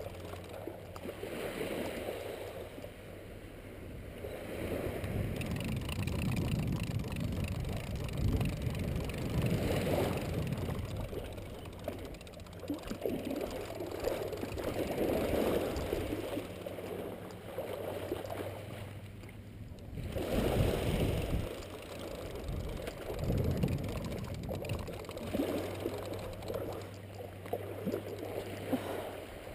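Small waves lapping at the beach with wind on the microphone, a muffled low rush that swells and eases every few seconds.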